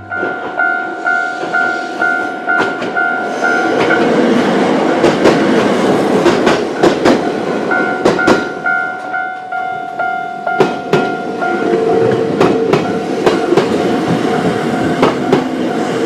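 Japanese level-crossing warning bell ringing in a steady ding-ding rhythm, about two strokes a second. After about four seconds a Choshi Electric Railway electric train passes over the crossing, its wheels clicking over the rail joints.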